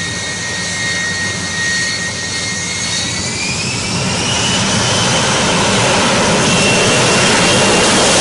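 Jet engine running with a high turbine whine that rises in pitch about three seconds in as it spools up, the roar growing steadily louder.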